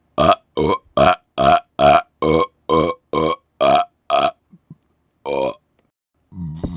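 A man burping rapid-fire close to the microphone: ten short burps in quick succession, about two a second, then one more a second later.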